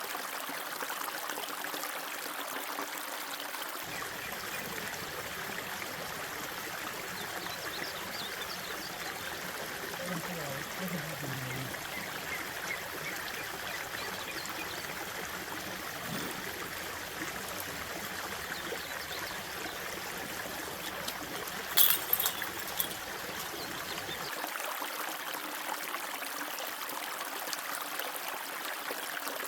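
Fast-moving mountain creek, running high after heavy rain, rushing steadily over rocks. A few sharp knocks come about two-thirds of the way in.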